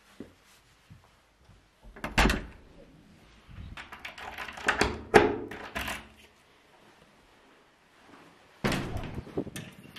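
A key turning in a front-door cylinder lock: a cluster of clicks and rattles in the middle, after a single thud about two seconds in. Near the end the door is pulled open with a clunk and a few knocks.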